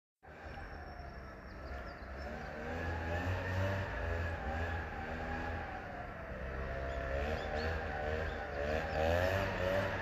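A motor vehicle's engine running nearby, with a steady low hum and a pitch that wobbles up and down, growing slowly louder.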